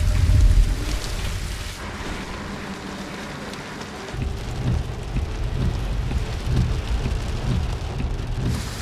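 Heavy rain with low rumbling thunder, a loud rumble in the first second and more rumbling from about four seconds in.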